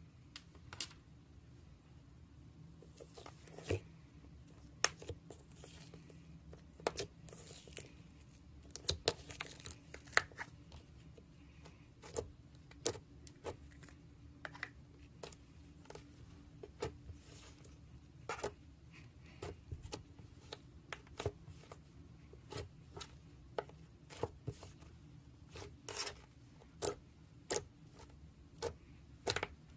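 Slime being squeezed and poked, giving irregular sharp pops and clicks, about one or two a second, with stretches of crinkling.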